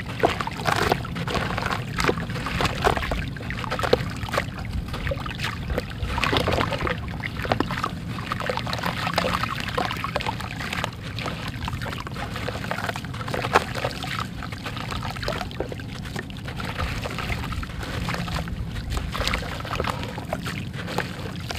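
Dry gray sand chunk crumbled by hand, its grains pouring and trickling down into a tub with many small crisp crunches.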